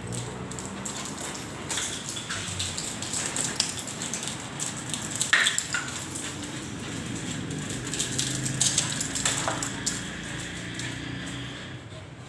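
Two small dogs scuffling in a play-fight on a tiled floor: many scattered clicks and scrapes of claws on tile, with light clatters.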